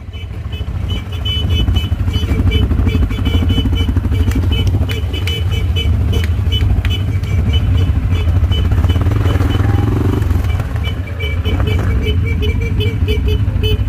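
Four-wheeler (ATV) engine running during an off-road ride: a loud, steady low rumble with rapid, irregular ticking over it.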